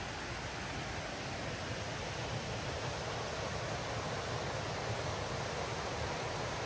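Steady rushing of a creek flowing over rocks and small cascades.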